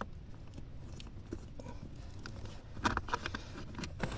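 Faint clicks and light taps of a stubby screwdriver and hands working at plastic under a car's dashboard, with a small cluster of clicks about three seconds in, over a low steady hum.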